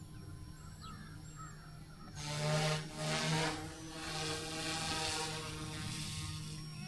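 GOOSKY S2 electric RC helicopter flying, its rotor and motor giving a steady hum; about two seconds in the rotor sound swells much louder, peaking twice, and stays raised for several seconds before easing off near the end.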